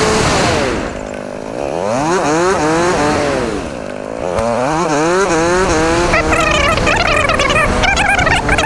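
Motorcycle engine revving up and back down twice, louder at the top of each rise, then holding at higher revs with a wavering pitch.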